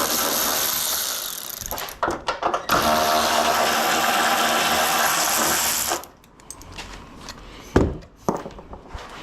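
Power drill running in two spells while undoing the fixings of a VW Transporter T4's front bumper, the second spell stopping suddenly about six seconds in. Then a few light knocks and one sharper knock near the end.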